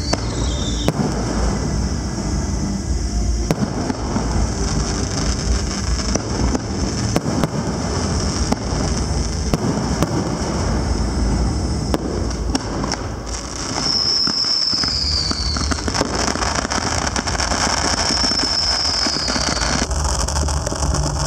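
Fireworks finale: a continuous barrage of shell bursts, sharp bangs and crackling. Twice in the second half a whistle falls in pitch, each lasting a couple of seconds.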